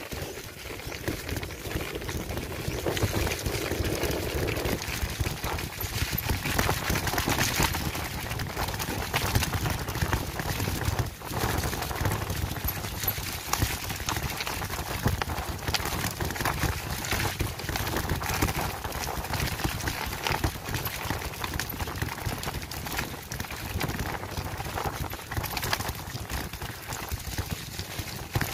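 Continuous rattle and clatter of a bike jolting over a rough dirt trail, heard from a handlebar-mounted camera: a dense run of irregular knocks over a steady rush of wind noise.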